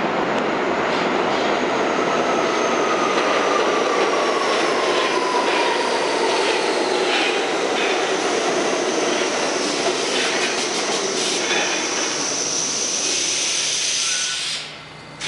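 R68A subway train pulling into the station and braking: a loud, steady rumble of steel wheels on rail with light clicks over rail joints, a whine that falls in pitch as the train slows, and a thin high squeal. The noise drops away abruptly near the end as the train comes to a stop.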